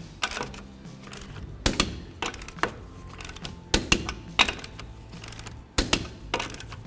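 Torque wrench with a 21 mm socket tightening lug nuts to 80 ft-lb: three sharp metallic clicks about two seconds apart, each as a nut reaches torque, with lighter clinks of the socket on the nuts between.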